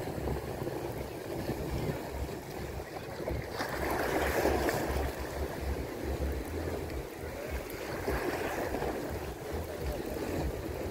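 Waves washing on a beach, swelling twice, with wind buffeting the microphone.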